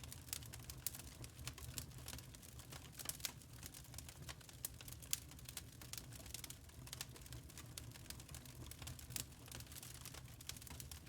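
Wood fire crackling in a fireplace: irregular sharp pops and snaps from the burning logs over a steady low rumble of the flames.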